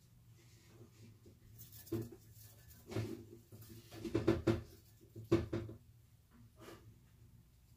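A few short knocks and clatters of something being handled, about five over several seconds, the loudest a quick cluster about four seconds in.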